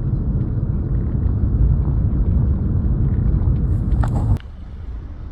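Loud, low, steady outdoor rumble that cuts off abruptly about four seconds in and gives way to a quieter rumble.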